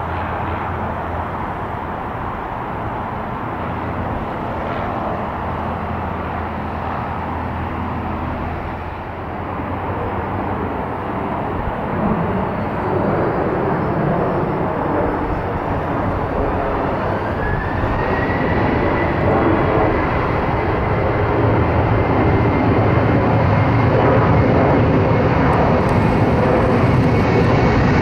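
A Boeing 737-800's CFM56-7B turbofan engines running as the jet lines up on the runway. About two-thirds of the way in, a whine rises and then holds steady, and the engine noise grows louder toward the end as the engines spool up for the takeoff roll.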